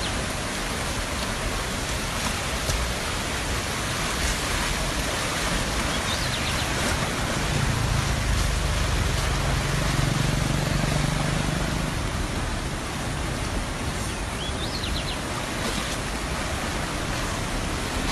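Muddy floodwater rushing fast in a swollen river, a steady broad roar. A low hum joins in for a few seconds midway.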